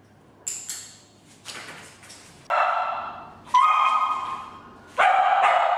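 Border collie barking three loud times, each bark trailing off in the echo of a hard-walled hall, after a few short, faint sharp sounds.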